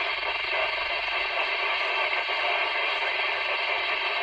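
CB radio on the 11-metre (27 MHz) band hissing with steady static through its speaker: an open channel with no station talking.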